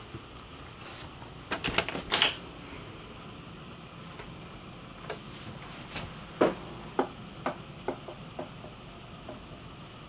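Sharp clicks and knocks over a steady hiss: a quick cluster about two seconds in, then a run of about five knocks half a second apart from about six seconds in, growing weaker.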